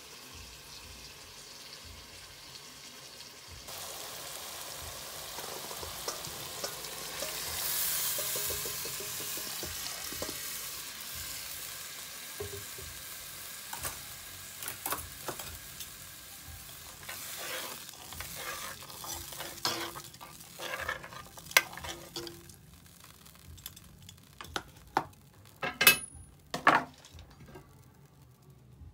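Food sizzling in a hot pot on the stove, the sizzle getting louder about four seconds in, then easing off. A spoon then stirs, clinking and scraping against the pot, with a few sharp metal knocks near the end.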